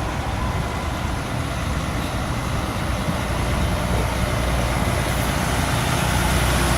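Heavy truck approaching along the road: engine rumble and road noise growing steadily louder.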